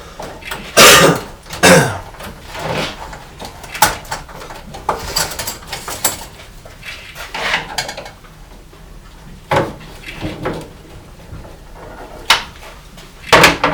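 Irregular clanks and knocks of tools and metal parts being handled, the loudest a pair of sharp knocks about a second in and again near the end.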